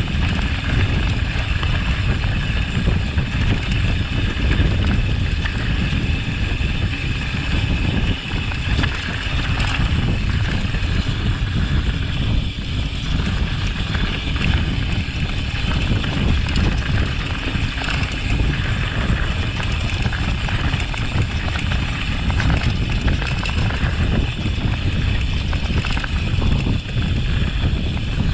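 Continuous wind buffeting on the microphone of a mountain bike descending a mountain trail, with the bike's rattling and tyre noise underneath.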